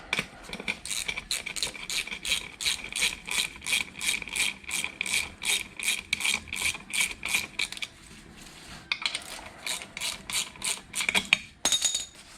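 Hand ratchet wrench clicking in quick, even strokes, about three a second, as bolts are run in on a strut assembly; it pauses briefly about eight seconds in, then resumes.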